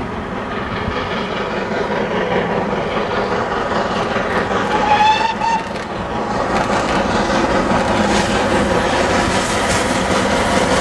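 Two steam locomotives double-heading a passenger train approach under steam, giving one short whistle a little before halfway, about a second long and rising slightly in pitch; then the train gets louder and the coaches clatter past on the rails.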